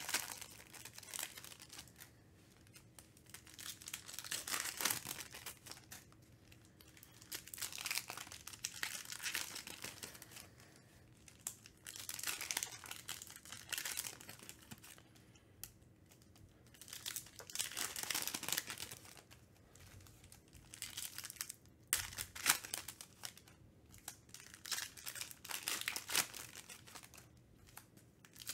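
Foil trading-card pack wrappers crinkling and tearing open, and cards being flipped through by hand, in bursts every few seconds.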